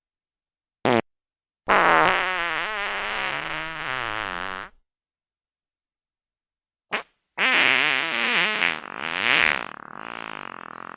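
Fart sound effects, one after another. A brief pop comes about a second in, then a long fart of about three seconds with a wavering pitch. After a gap there is another short pop and a second long, wavering fart that trails off near the end.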